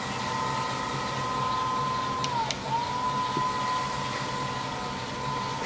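Hardinge HLV-H toolroom lathe running at low spindle speed with the carriage under electric power feed, giving a steady whine. About two and a half seconds in, the whine drops away briefly with a couple of clicks, then comes back up and holds steady.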